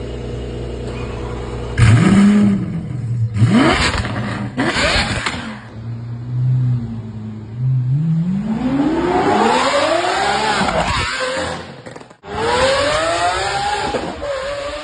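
Lamborghini supercar engine idling, then revved hard three times in quick blips with exhaust crackles. It settles back to idle, then accelerates with one long rising pitch. After a short break near twelve seconds it runs at high revs again.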